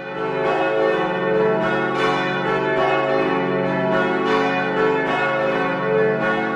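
Church bells ringing a peal of many overlapping strikes, swelling in at the start.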